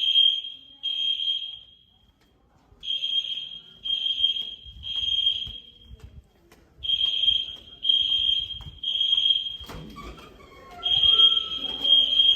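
EST Genesis fire alarm horns sounding the temporal-3 evacuation pattern during a fire alarm test: a high-pitched tone in groups of three blasts, each under a second, with a pause of about a second and a half between groups. A thump comes near the ten-second mark.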